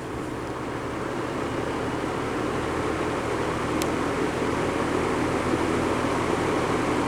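Vintage 24-inch Pencrest reversible box fan running in forward, spinning up: a steady rush of air that grows gradually louder, over a low motor hum. A faint click about four seconds in.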